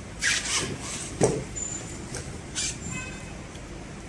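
Short rustling swishes of heavy quilted upholstery fabric being shifted by hand, with one sharp click about a second in. The industrial sewing machine is not running.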